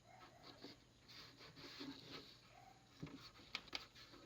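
Faint clicks and scraping of a screwdriver driving the top-cover screws into a DVR's metal case, with a few sharper ticks about three seconds in.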